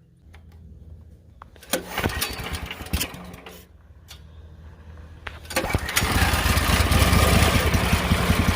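Small minibike engine being started: it sputters briefly about two seconds in and dies, then catches about six seconds in and runs steadily with a loud, rapid beat.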